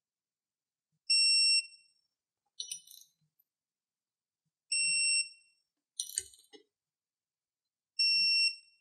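Digital torque wrench beeping three times, each a short steady high beep about half a second long, signalling that a ring gear bolt has reached the set final torque. Brief metallic clicks between the beeps as the wrench and socket are worked onto the next bolt.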